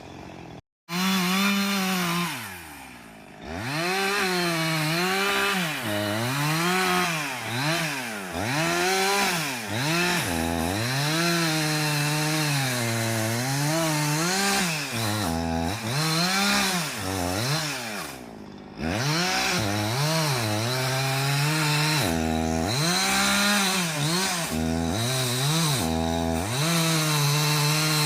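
Chainsaw cutting wood, its engine pitch repeatedly sagging and climbing back every second or two. It breaks off briefly just after the start and again about two-thirds of the way through.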